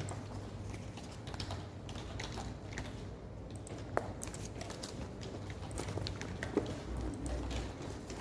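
Irregular clicking of someone typing on a computer keyboard, over a low steady room hum.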